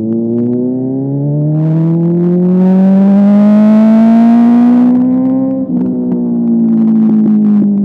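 Sport motorcycle engine accelerating, its pitch climbing steadily for about five seconds with a rush of wind at the top. The revs then drop abruptly and fall off slowly as it slows, with a run of sharp crackles.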